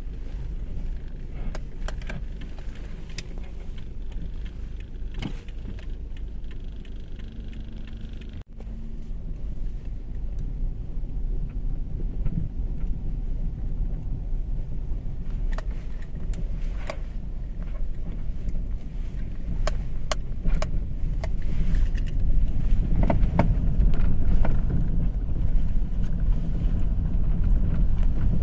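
Toyota RAV4 running, a steady low rumble with scattered light clicks, growing louder in the last few seconds.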